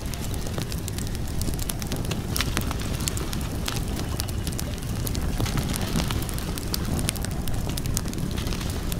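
Wood fire crackling, with frequent sharp pops and snaps scattered over a steady low rumble.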